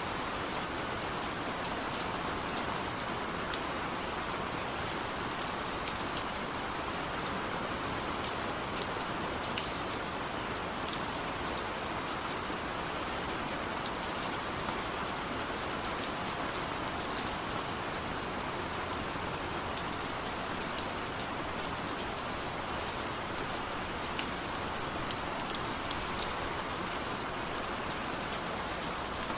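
Steady rain falling, an even hiss with many individual drops ticking through it.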